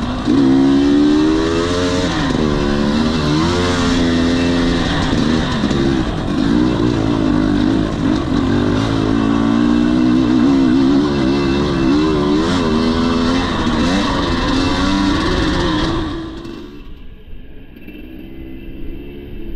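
2021 Husqvarna TE250i's single-cylinder two-stroke engine being ridden hard, its pitch rising and falling as the throttle opens and closes. About sixteen seconds in it drops to a much quieter, duller engine sound.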